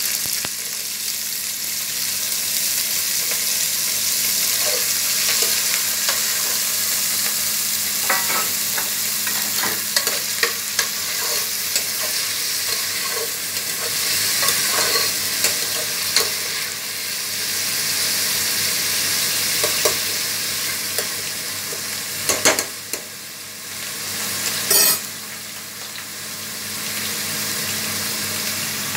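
Chopped onions sizzling as they fry in hot ghee with whole spices in a steel pot. A steel spoon scrapes and clinks against the pot as they are stirred, with a couple of louder clatters near the end.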